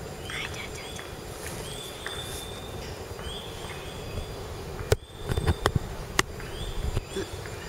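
Station platform ambience: a steady low hum with a short high chirp repeating every second and a half or so. About five seconds in there is a sharp click, then a few knocks as the camera is swung and handled.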